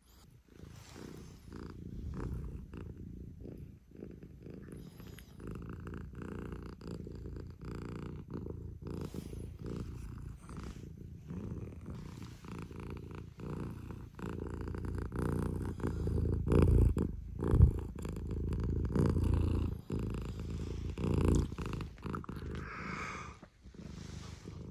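Domestic cat purring right up against the microphone, getting louder in the second half.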